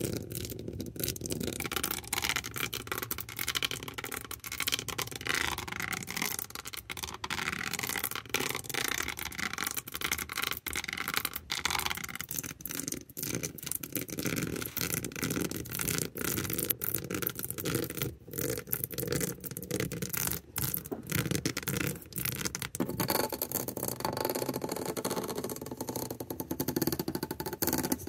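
Backs of fingernails scratching rapidly over a surface as an ASMR trigger, a busy run of fine scratches and ticks; the texture changes about five seconds before the end, as the strokes or surface change.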